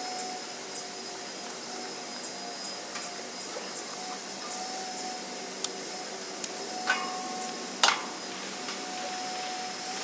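Light clicks and a few knocks, the loudest near the end, as a clamp meter and its test leads are handled and set down on the sheet-metal top of an air-conditioner condensing unit, over a faint steady hum.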